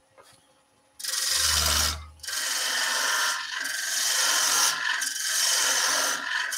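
A quarter-inch gouge cutting into a wooden staircase spindle turning on a wood lathe, taking shavings as it tapers the work down. The cut starts about a second in, breaks off briefly around two seconds, then runs on steadily.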